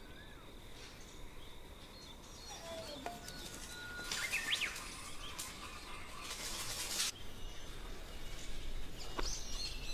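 Small birds chirping in short calls over outdoor ambience, with a thin steady high tone and a few seconds of hissing noise in the middle.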